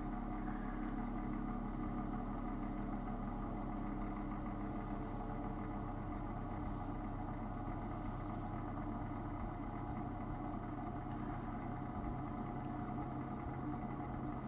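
Electric space heater's fan motor running steadily with an even hum, blowing air through the unit with its filter removed.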